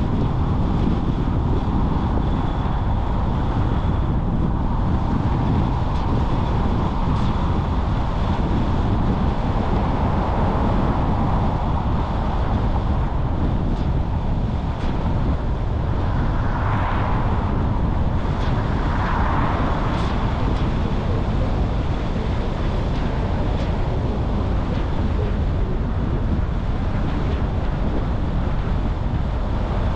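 Steady road noise of a car driving: a continuous low rumble with wind on the microphone, a few faint clicks and two brief swells a little past the middle.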